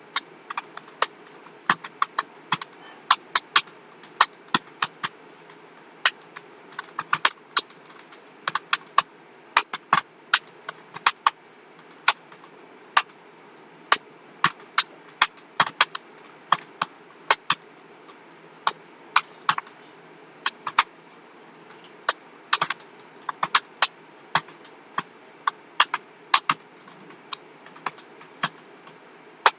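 Computer keyboard being typed on: irregular keystroke clicks in quick runs of several a second, broken by short pauses, over a steady low hum.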